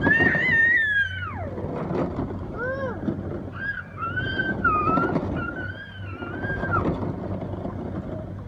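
Young children squealing with high, drawn-out, wavering cries: a long one at the start falling away about a second in, short rising ones near the middle, and a long wavering one after that. Underneath, the hard plastic wheels of ride-on push cars rumble on the concrete ramp.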